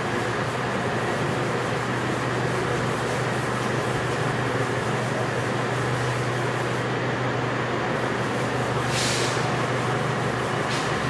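A blackboard duster rubbing across a chalkboard in a few short strokes near the end, over a steady hiss with a low hum.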